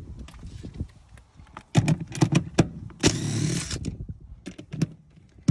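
A cordless drill/driver runs for under a second, backing out a 14 mm seat-mounting bolt. Before it come several sharp clicks and knocks as the tool is fitted to the bolt.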